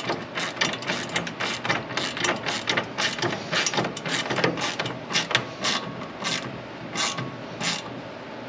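Hand ratchet clicking in a quick run of a few clicks a second as a nut is turned onto a bolt through a pickup's bed rail with fender washers. The nut is being snugged only loosely so the part can still be adjusted.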